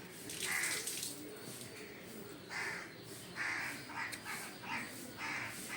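Crows cawing repeatedly, a series of harsh calls about one every half second to a second.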